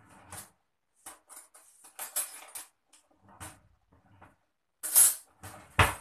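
Kitchen utensils and containers clinking and knocking as they are handled, with a run of rattling about two seconds in and two sharper knocks near the end.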